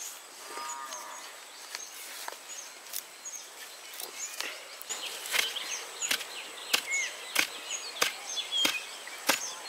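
Sharp, irregular clicks and cracks, roughly one or two a second and louder in the second half, with small birds chirping now and then.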